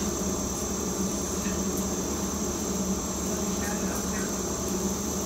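A steady machine hum, low and even, with a faint high whine above it.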